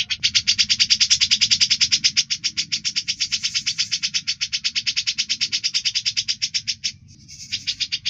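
A songbird's sharp, rapidly pulsed rattling trill, the 'besetan' call used as masteran training audio for caged songbirds, repeating without pause and breaking off briefly about seven seconds in.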